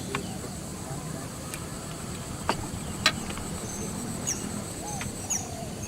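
Steady high insect drone over a low outdoor rumble, with a few sharp clicks and several short, high, falling chirps.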